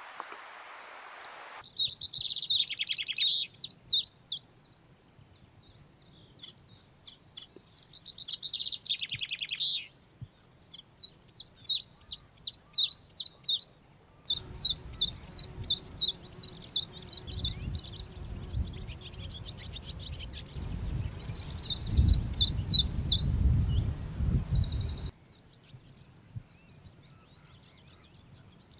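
Leaf warbler song (chiffchaff or willow warbler): short phrases of quick, high, evenly spaced notes, each phrase two to three seconds long, with brief pauses between. From about halfway a low rumble runs under the song, and both stop a few seconds before the end.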